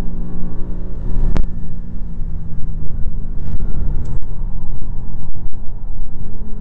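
Car engine heard from inside the cabin on a circuit lap, running steadily, then a sharp click about a second and a half in, after which the note drops to a rough rumble before picking up again near the end.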